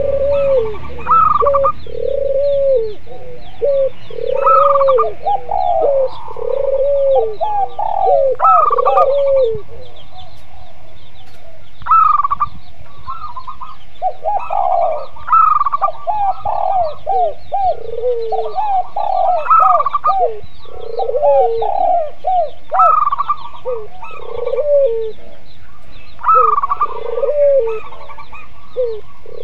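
Spotted doves, zebra doves and collared doves cooing together in overlapping calls. Low arched coos repeat about once a second, quicker and higher notes come between and above them, and faint small chirps sound in the background.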